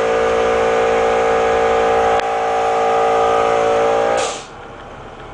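Waste vegetable oil boiler's burner running with a loud, steady hum, stopping abruptly about four seconds in.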